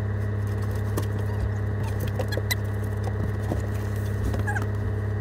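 A van's engine idling with a steady low hum, heard from inside the cab, with scattered small clicks and knocks over it.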